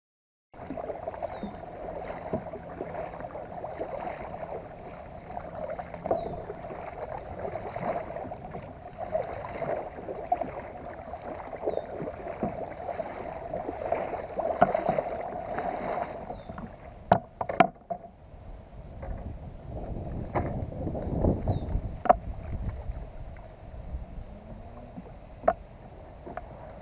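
Kayak paddle strokes in the water, a swell about every two seconds. A few sharp knocks follow, then a rough, rustling scrape as the kayak runs into the bank's grass and reeds. A short falling bird chirp repeats every few seconds.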